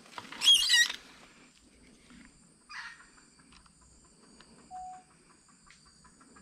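A bird's loud, rapidly warbling high-pitched call, lasting about half a second, near the start, over a steady high-pitched whine. Later comes a shorter call or rustle, then a run of faint ticks.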